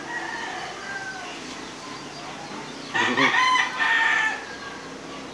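A rooster crowing: one loud crow about three seconds in, lasting just over a second, with a fainter crow near the start.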